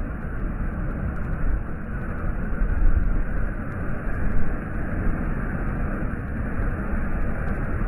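Sea water surging and rushing: a steady low rush of waves with swells about 3 and 4.5 seconds in.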